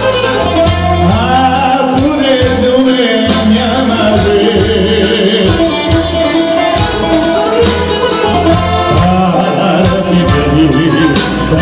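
Live Greek laiko music: a male singer with electric keyboard and guitar accompaniment over a steady pulsing bass.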